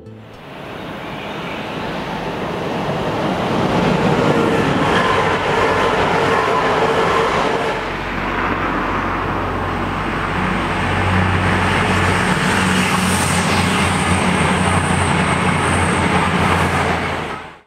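EMR Intercity diesel passenger train passing at speed: a rush of wheels and air that builds over the first few seconds. After a change about eight seconds in, a steady low engine hum and a faint high whine join it until the sound cuts off suddenly.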